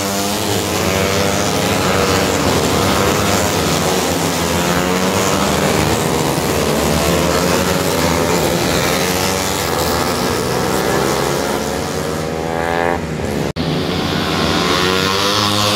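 Several small racing motorcycles revving hard as they race through a bend, their engine notes rising and falling with throttle and gear changes. One bike sweeps past close by about twelve seconds in. Just after that the sound cuts out for an instant.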